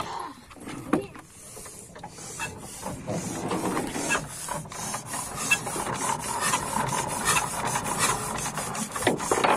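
A small boat engine clattering with a fast, rasping rhythm, settling in from about three seconds in after a few knocks and scraping.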